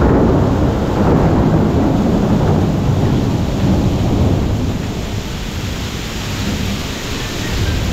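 Heavy rain pouring down, with a deep steady rumble beneath it that eases a little about halfway through as the hiss of the rain comes forward.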